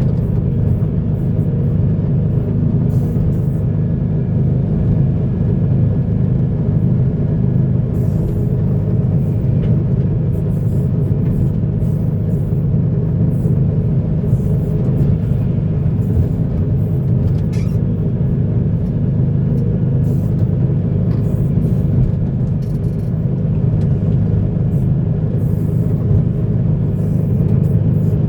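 Heavy diesel earthmoving machinery running steadily, a deep even engine rumble with faint clicks and knocks on top.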